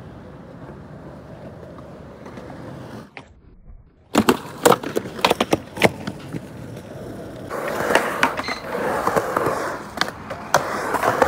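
Skateboard on concrete: wheels rolling steadily, then from about four seconds in a run of sharp clacks as the board is popped and lands. Louder rolling with more clacks follows near the end, on the concrete ramp of a skatepark bowl.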